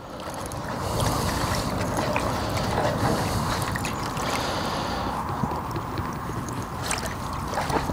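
Water sloshing and swishing in a plastic bucket as a hand stirs through 2 mm micro pellets soaking in it.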